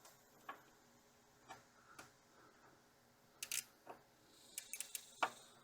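Faint, irregular clicks of a multi-angle ratchet working bracket screws, roughly one a second, with a quick cluster of sharper clicks in the second half.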